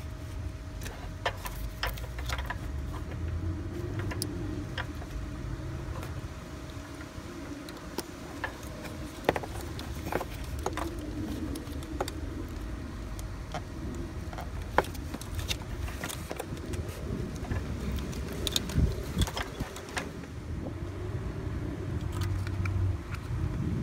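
Plastic wiring connectors at a Honda Odyssey's front VTEC solenoid being unlatched and handled, giving scattered sharp clicks and rattles over a steady low background rumble.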